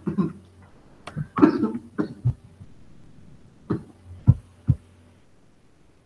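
A man coughing in a fit, about eight short coughs spread over a few seconds, from a dry throat.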